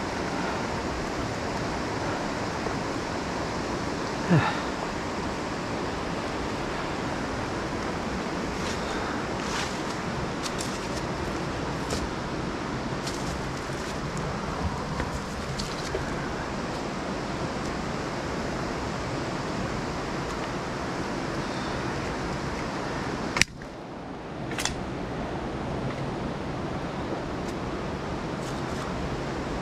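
Steady rush of the Youghiogheny River's rapids. A few sharp knocks or clicks sit over it, one about four seconds in and a louder one past the two-thirds mark, after which the rush briefly dips.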